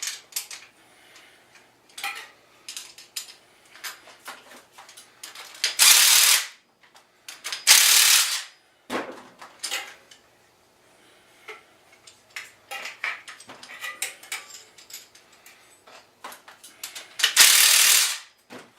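Ratchet wrench clicking in short runs and metal tools clinking while the nuts on a bicycle's rear sprocket bolts are tightened, with three louder stretches of about half a second to a second.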